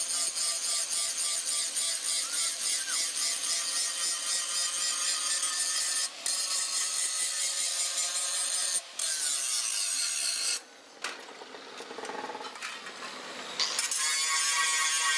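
Electric angle grinder grinding a steel hoe blank, a steady high whine with the grating of the disc on metal. It drops out briefly twice and goes quieter for about three seconds, then comes back loud near the end as the grinder is worked again.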